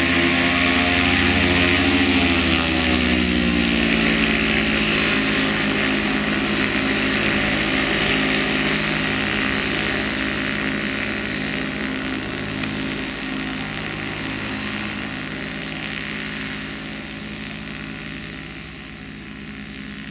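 Rotax 277 single-cylinder two-stroke engine and propeller of an Earthstar Laughing Gull ultralight running as it taxis. The pitch rises and then drops in the first few seconds, and the sound grows steadily fainter as the aircraft moves away.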